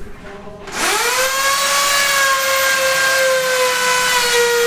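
An electric power tool's motor spins up about a second in, its whine rising quickly and then running steady at high speed.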